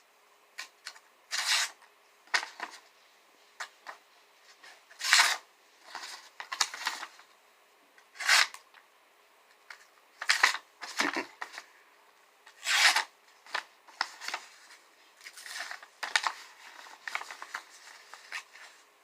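Ozark Trail 8604 flipper knife blade slicing through paper: about a dozen short cutting strokes, irregularly spaced, each a brief hiss of the paper being cut.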